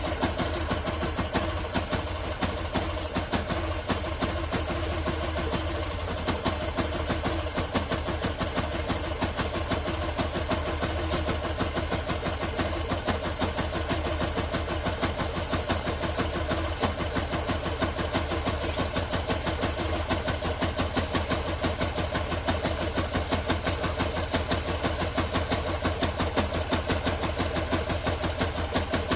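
An engine idling steadily with a fast, even pulsing beat. This is the strange noise the owner is showing.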